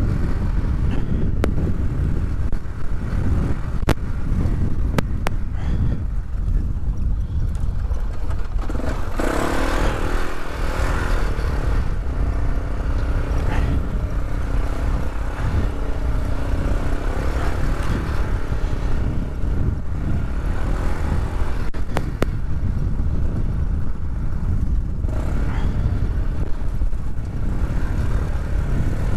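Polaris all-terrain vehicle's engine running as it is ridden, a steady low rumble, with a louder rushing stretch about nine seconds in and a few scattered clicks.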